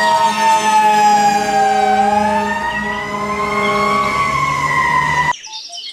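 Fire engine siren in a slow wail: its pitch slides down, climbs again, then starts to fall, over a steady low drone. It cuts off suddenly near the end.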